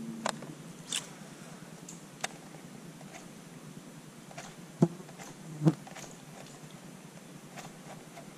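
Light clicks from fishing tackle being handled aboard a kayak, with two dull knocks a little after the middle, over quiet river ambience.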